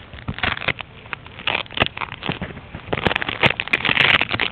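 Camera handling noise: irregular crackling and knocking as something rubs against and bumps the microphone, thickest near the end.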